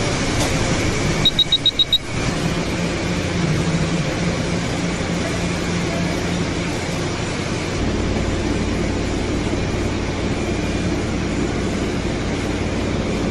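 French fries processing line machinery running steadily, a dense mechanical noise with a low hum. About a second in come five quick, high-pitched beeps.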